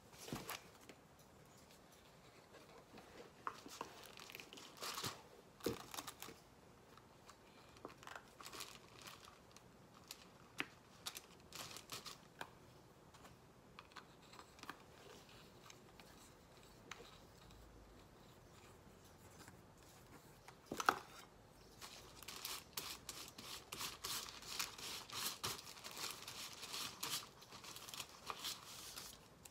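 Palette knife scraping acrylic paint across a canvas pad: scattered short scrapes and clicks, then a busier run of scraping near the end.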